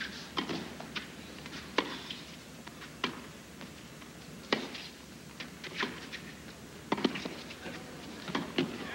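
Tennis ball struck back and forth by rackets in a rally on a hard court: a string of sharp pops about a second or so apart over a low crowd and court hum.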